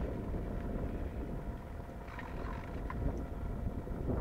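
Wind rumbling steadily on the microphone, with a faint steady hum underneath.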